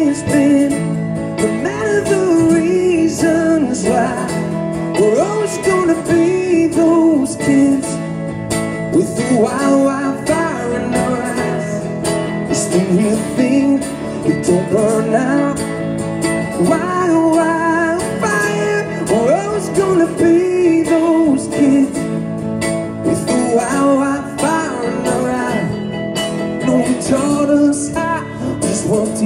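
Live band music: a man singing into a microphone over strummed acoustic guitar, amplified through a PA system.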